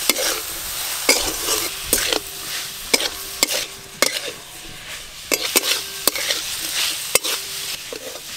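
A spatula stirring chicken keema frying in oil in a metal karai: a steady sizzle with irregular sharp clacks and scrapes of the spatula against the pan, about one or two a second.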